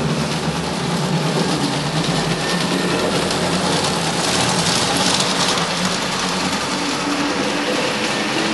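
LGB G-scale model tram running along its track, its electric motor, gearing and wheels giving a steady mechanical running noise. It is louder and brighter as the tram passes close about halfway through.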